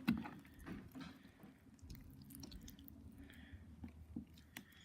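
Slime being handled and worked by hand with lotion mixed in: a run of faint, short clicks and sticky noises.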